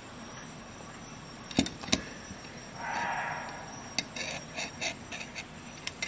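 Knipex Twin Grip slip joint pliers clicking as they are handled: two sharp metal clicks, a brief soft rushing sound, then a run of lighter metal ticks as the jaws and push-button pivot are worked.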